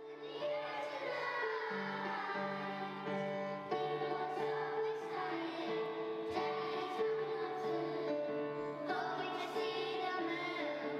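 A choir of young children singing together, holding long notes that change pitch every second or two.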